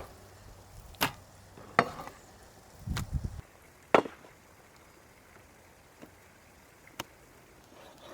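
Large wide-bladed knife chopping raw meat on a table: a handful of sharp, separate chops at an uneven pace, the loudest about two and four seconds in.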